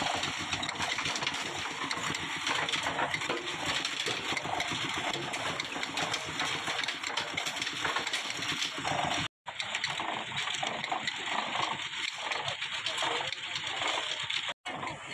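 A hoe scraping and splashing through wet concrete slurry, a dense wet sloshing and scraping. After a cut about nine seconds in, it gives way to sparser clanks and voices.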